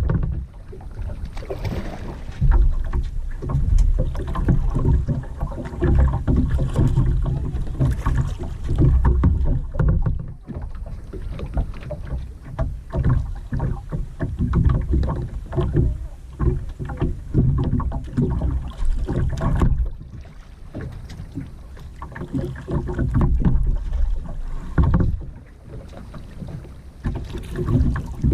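Kayak paddling on a river: the paddle dips and splashes with each stroke, over a low, uneven rumble that rises and falls in surges.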